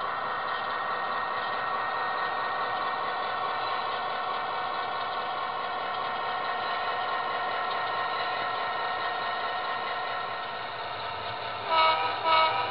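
HO scale model train with DCC sound running slowly by, a steady engine drone with whining tones that sink a little in pitch as it slows. Near the end the horn gives two short toots, the loudest sounds here.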